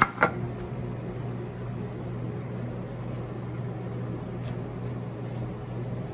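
Two quick slaps at the very start as a whole sea bream is set down on a plastic cutting board. Then the steady low hum of kitchen equipment runs on.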